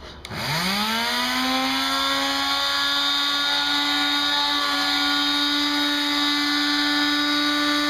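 Electric palm sander switched on: its motor spins up with a quickly rising whine, then runs at a steady pitch.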